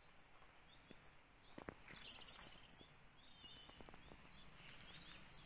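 Near silence: faint outdoor ambience with scattered faint bird chirps and a couple of soft knocks about a second and a half in.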